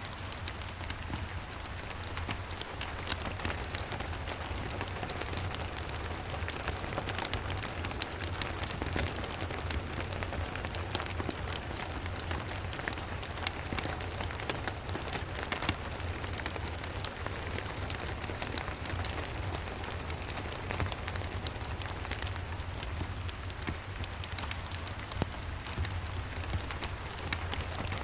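Steady rain falling, dense with small sharp drops and ticks, mixed with the crackle of a wood fire in a fireplace and a steady low rumble underneath.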